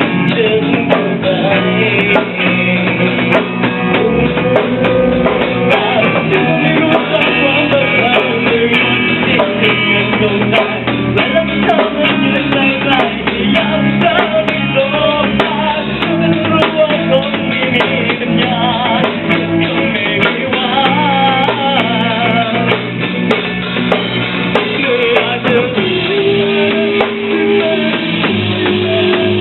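Rock song with drums, guitar and a singing voice, played loud and continuously.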